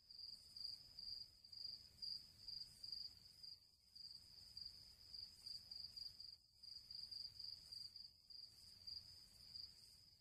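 Faint, high-pitched insect chirping at one steady pitch, pulsing about three times a second, over a faint low background hiss.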